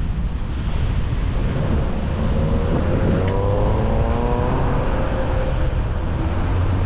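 Street traffic with a steady low rumble. About two seconds in, a nearby motor vehicle's engine accelerates, its pitch rising for a couple of seconds, then holding before it fades.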